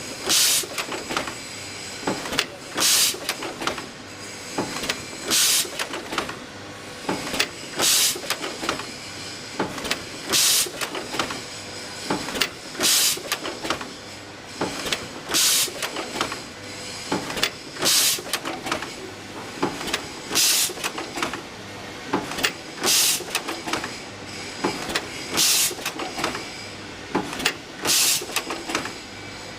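Automatic chain-making machine running through its cycle, a short loud hiss-like burst about every two and a half seconds with smaller mechanical clicks in between.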